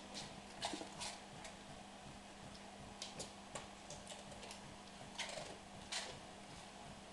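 Bernese mountain dog on a tiled floor eating dropped toast: irregular light clicks of its claws on the tiles as it shifts about, mixed with the crunch of toast being picked up and chewed.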